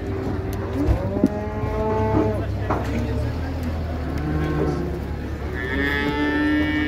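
Yearling cattle mooing: several long, overlapping moos one after another, the last one near the end higher and brighter than the rest.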